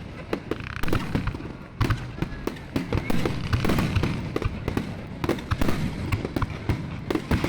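Fireworks finale barrage: shells bursting in quick, overlapping succession, several bangs a second over a continuous low rumble.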